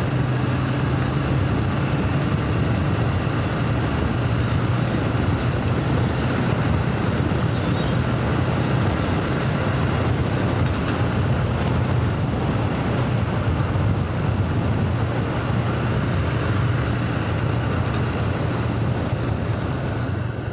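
Motorcycle engine running steadily at cruising speed, a constant low hum under a steady rush of wind and road noise on the microphone.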